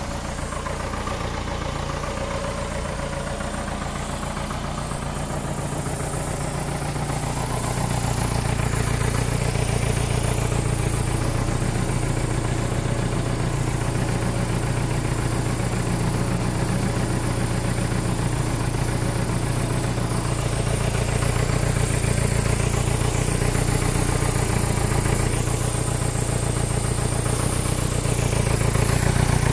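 Nuffield 460 tractor engine running steadily, getting louder about eight seconds in.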